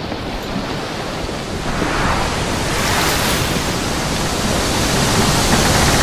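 A steady rushing noise like sea surf that swells about two seconds in and grows louder still near the end.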